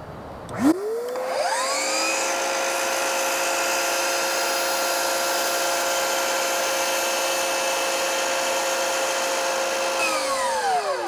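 Miter saw switched on with a click, its motor winding up to a steady high whine while the blade is brought down into the upturned MDF baseboard for a relief cut along the profile. Near the end the trigger is let go and the motor winds down, falling in pitch.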